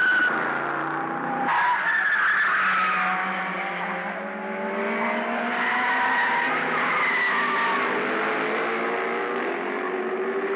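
Racing car engines running hard on the circuit, their note climbing steadily as the cars accelerate, with an abrupt change in the sound about a second and a half in.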